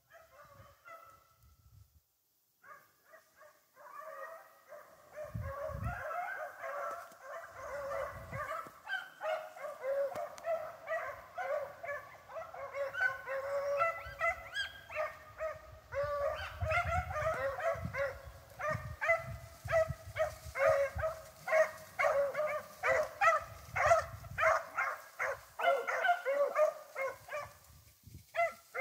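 A pack of rabbit-hunting hounds baying and barking in full chase on a swamp rabbit's trail. It starts faintly about four seconds in and builds into a dense chorus of many voices that grows louder toward the end.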